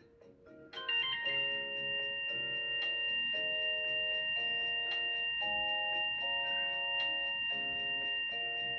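A phone ringtone starts suddenly about a second in and keeps ringing: a melody of chiming notes over two held high tones, signalling an incoming call.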